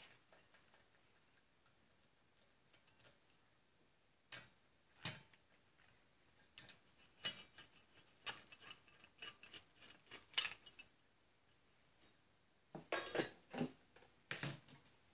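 Scattered small metallic clicks and clinks of a hand tool working on a small engine's casing as the screws holding a guard are taken out. The clicks start about four seconds in and come in irregular clusters.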